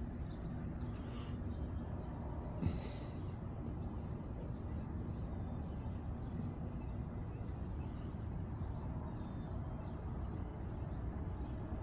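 Quiet early-morning outdoor ambience: a steady low rumble with faint, scattered bird chirps, and one short breathy sniff about three seconds in.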